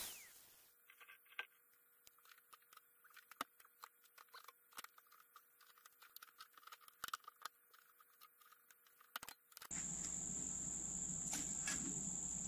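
A power tool's cutting noise stops at the very start. Then faint, scattered clicks and metal ticks are heard as the square cut from the bus's sheet-metal side is worked loose with pliers. About ten seconds in, a cricket's steady high trill starts up with faint outdoor background noise.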